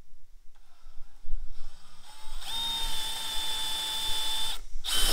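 Cordless drill boring a hole through a wooden block. The motor starts quietly about half a second in, then runs at a steady high whine for about two seconds and stops. A short burst of the drill comes near the end.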